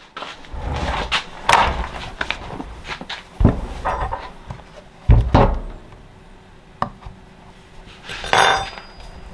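A small plastic-cased LiFePO4 battery being handled and cracked open on a wooden workbench: rubbing and scraping, a few loud thuds, with the two loudest about three and a half and five seconds in, and a burst of plastic clicks and cracks near the end.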